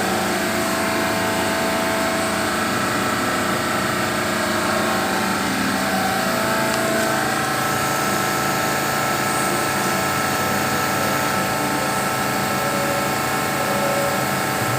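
Machinery running steadily: a constant mechanical hum with several held tones over a noisy rush, unchanging throughout.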